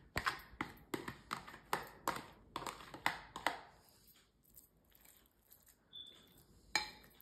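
A spoon scraping and tapping soured yogurt out of a plastic tub into a ceramic bowl of bulgur, a quick run of light clicks about three a second. After about three and a half seconds it turns to softer stirring of the yogurt into the bulgur for kishk, with a brief ping and one sharper clink near the end.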